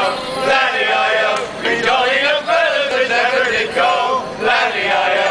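A group of Morris men singing together in a chant-like song, with held notes that bend in pitch.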